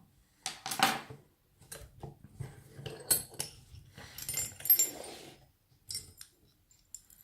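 Metal clicks and rattles of an Abus 83CS/50 brass padlock and its key being handled just after the lock has been picked open, in irregular bursts with a key jingling.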